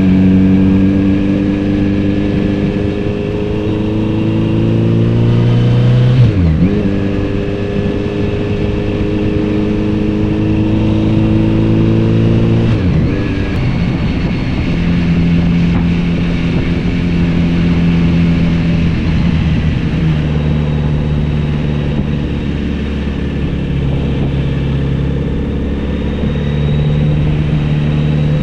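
Kawasaki Z900RS 948 cc inline-four engine and exhaust under way. The revs climb, drop sharply at an upshift about six seconds in, climb again and drop at a second upshift near halfway. After that the engine holds a steady cruise with small changes in throttle.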